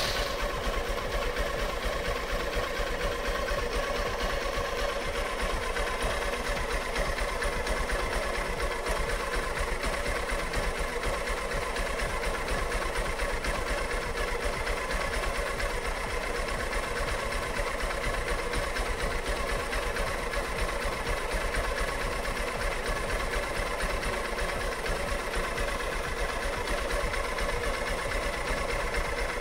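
Single-cylinder, air-cooled, carburetted motorcycle engine idling steadily, running with its air suction valve disabled and the valve's pipes blocked.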